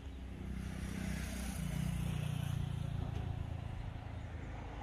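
A motor vehicle's engine passing by: it grows louder over the first two seconds, holds, then fades.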